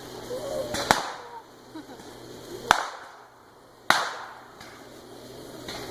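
Small fireworks going off: three sharp cracks spread over a few seconds, the last one trailing off briefly, with a fainter crack near the end.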